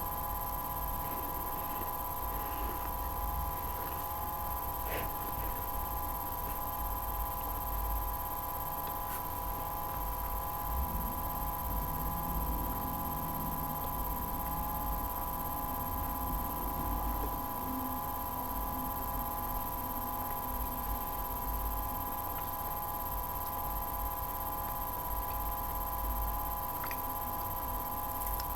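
Steady electrical hum made of several even tones, with a faint low rumble and a couple of faint clicks.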